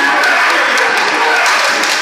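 Large crowd of spectators cheering and clapping loudly, with hip-hop dance music playing underneath.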